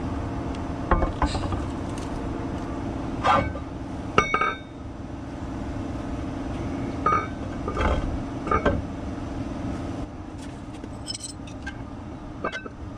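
Metal clinks and knocks as a heavy manual-transmission flywheel is fitted by hand onto the crankshaft hub of a 5.9 Cummins diesel. The loudest is a sharp ringing clink about four seconds in. A steady low hum runs underneath.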